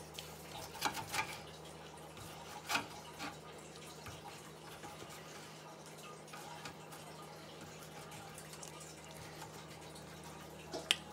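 A basting brush dipped into a metal bowl of sticky glaze and dabbed onto bacon strips: a few soft wet taps and clicks, the clearest about a second in, near three seconds and just before the end, over a low steady hum.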